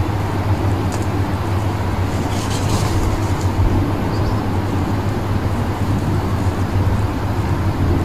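Steady low background rumble, like road traffic, with a brief high hiss about two and a half seconds in.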